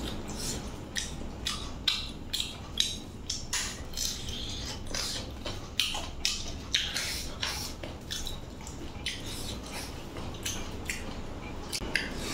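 Close-up eating sounds: chewing and wet lip-smacking while eating chicken with rice by hand, an irregular string of short smacks and clicks, at times several a second.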